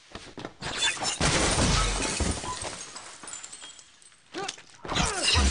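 Film sound effects of a fight breaking out: sudden loud crashes of glass shattering and things breaking, fading after a few seconds, then a second burst of crashes with swooping sweeps near the end.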